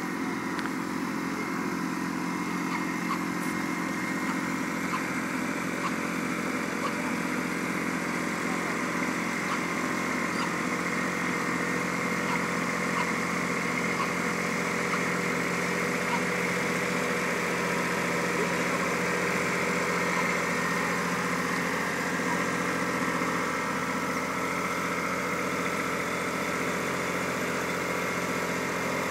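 Blue compact utility tractor's engine running steadily at idle.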